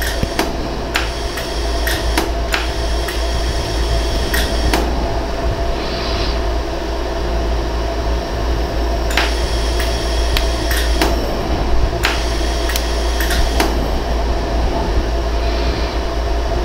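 A 100-joule LaserStar iWeld jewelry laser welder fires single pulses that fuse gold welding wire onto a worn ring prong. Each pulse is a sharp click, a dozen or so at irregular spacing in two runs with a pause of a few seconds between. A steady machine hum runs underneath.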